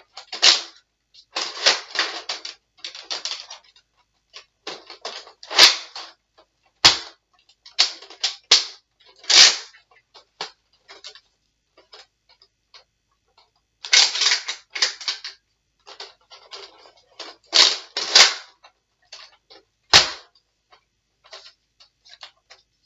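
Plastic clicking and rattling of a Nerf blaster being handled, with darts and the priming mechanism worked over and over at uneven intervals and a few sharper snaps among them. The blaster is jamming and the darts are not feeding properly.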